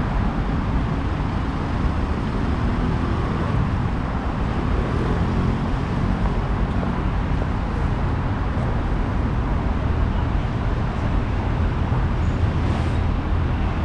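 Steady road traffic on a busy city street: a continuous low hum of passing cars and other vehicles.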